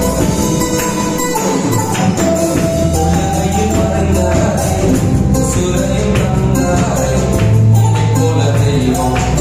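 Tamil Christian worship song music with a steady beat, with a man's voice singing into a microphone at times.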